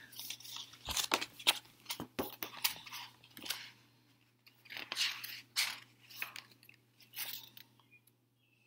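Paper pages of a picture book being opened and turned by hand: a string of rustles and flaps, with a short pause about four seconds in.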